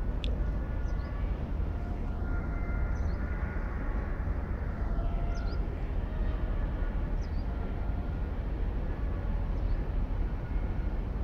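Steady low outdoor rumble with faint short high chirps scattered through it.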